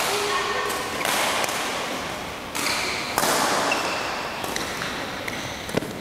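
Badminton rally: rackets striking the shuttlecock about once a second, each hit echoing in a large sports hall, with short squeaks of shoes on the court mat.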